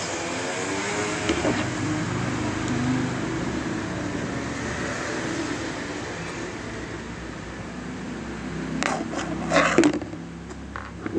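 Steady background rumble, then a quick cluster of clicks and scrapes about nine seconds in, with two more near the end, as the parts of a camera stand are handled.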